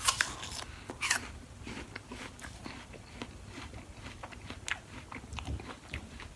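Biting into a slice of Cosmic Crisp apple: a sharp crunch at the bite and another about a second later, then steady crunchy chewing with many small irregular crackles.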